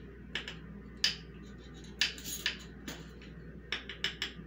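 Metal measuring spoons on a ring clicking and clinking while a teaspoon is dug into baking soda, in a series of scattered short, sharp sounds.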